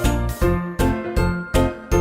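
Cheerful children's background music: a bright chiming melody over a steady beat of about two and a half beats a second.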